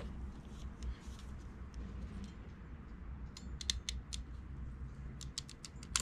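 Ratchet crimping tool clicking as its handles are squeezed down on a blue ring terminal on a black power wire: a quick run of sharp clicks about three and a half seconds in and another near the end, over a low steady rumble.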